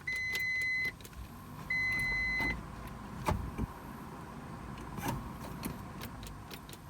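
Car's electronic warning chime beeping twice, each a steady tone of nearly a second, about a second apart, followed by a few light clicks. No starter cranking or engine is heard: the 1993 Mitsubishi 3000GT's starter is not turning the engine over.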